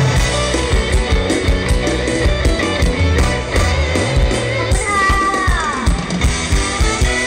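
Loud live mor lam band music played through the stage sound system, with drums and bass keeping a steady beat. About five seconds in, a lead instrument plays a long falling pitch slide.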